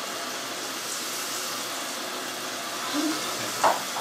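Water running steadily from a bathtub tap, with a short sharp sound near the end.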